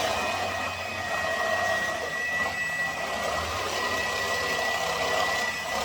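A small motor or fan running steadily, an even whir with a thin high whine held on one pitch.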